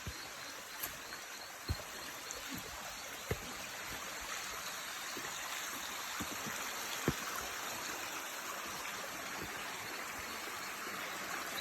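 Swollen floodwater rushing steadily in a stream, with a few short knocks over it.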